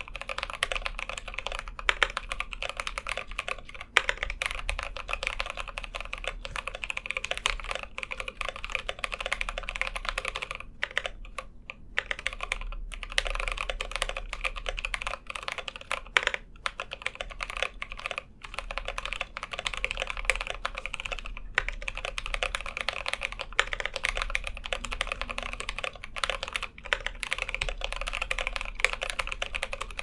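Steady, fast typing on an Idobao ID80 mechanical keyboard with lubed Kiwi tactile switches, HK Gaming keycaps and Durock stabilizers, without plate foam: a dense run of keystroke clacks that pauses briefly about eleven seconds in.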